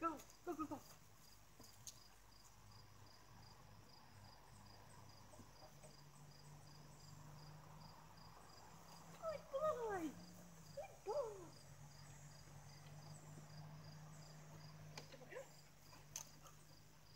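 An insect chirping steadily, a high-pitched pulse about twice a second. A few short sliding calls break in about nine to eleven seconds in.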